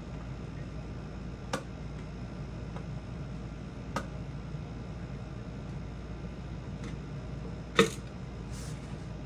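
Three sharp clicks and knocks from hands handling the record player's platter and parts while fitting a rubber band on as a drive belt, the loudest near the end, over a steady background hum.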